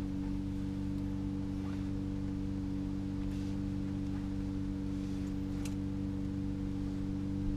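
Steady low machine hum with a few faint light taps and scrapes.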